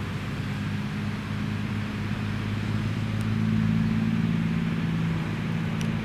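ED4M electric multiple unit approaching slowly, a steady low hum that swells a little after halfway, with two faint ticks.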